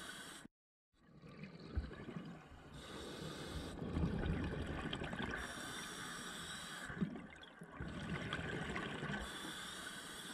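Scuba diver breathing through a regulator underwater: bubbles rushing out on each exhalation alternate with the hiss of inhalation, about every two to three seconds. The sound drops out briefly about half a second in, and there are a couple of sharp low thumps.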